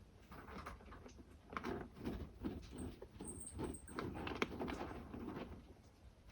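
Kittens scratching and digging in cat litter: a run of irregular, gritty scrapes, busiest through the middle.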